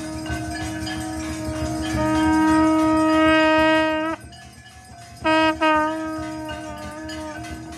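Conch shell (shankh) blown in long, steady notes: one swells louder about two seconds in and breaks off around four seconds, followed by two short blasts and another held note. Bells ring along with it.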